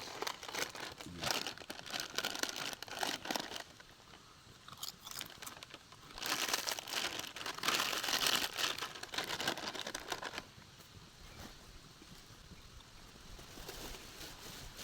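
Plastic chips packet crinkling and crunching as it is handled, in two spells: one for the first three and a half seconds or so, another from about six to ten seconds in.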